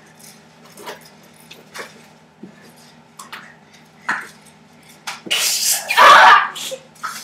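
A few light knocks and rustles, then about five seconds in a loud hissing spray lasting about a second and a half, from a hand-held spray bottle standing in for pepper spray.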